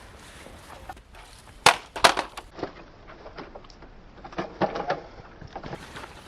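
A series of sharp clicks and knocks: two loud ones near two seconds in, a few lighter ones after, then a quick cluster near five seconds.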